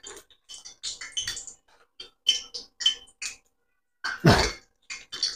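Irregular clicks, taps and scrapes of a metal spoon against kitchenware, with one louder thump about four seconds in.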